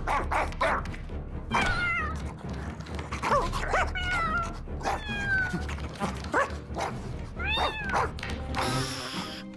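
Cartoon kitten meowing again and again, short mews that rise and fall in pitch, with a few soft thumps and music underneath.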